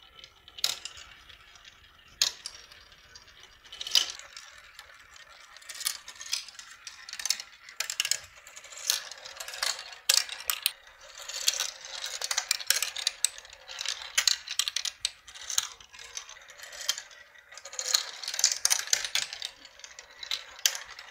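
Several marbles rolling and clattering down a plastic, Lego-sized marble run: a busy stream of small clicks and rattles as they drop through the funnels and chutes. The run is now working and all the marbles finish their course.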